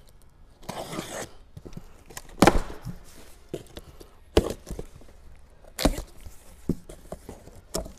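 A large cardboard box being opened and handled. There is a short noisy rasp about a second in, then three sharp loud knocks and thumps, with a few fainter ones near the end.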